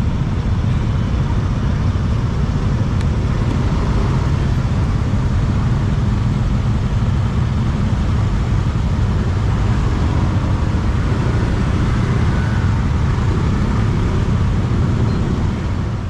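Steady road and traffic noise heard from a moving motor scooter in city traffic, mostly a low rumble with no single sound standing out.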